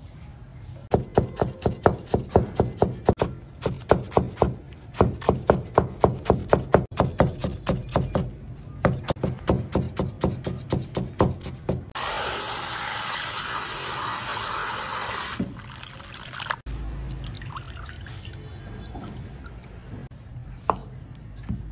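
Cleaver chopping a white root vegetable into fine strips on a plastic cutting board, about three or four quick strokes a second, for most of the first half. Then a tap runs into a steel bowl for a few seconds, followed by light handling of the wet strips.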